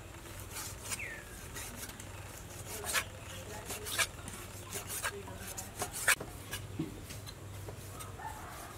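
A cleaver slicing pork heart on a wooden chopping board, with irregular sharp knocks as the blade goes through the meat onto the board. There are about a dozen knocks, the loudest about six seconds in.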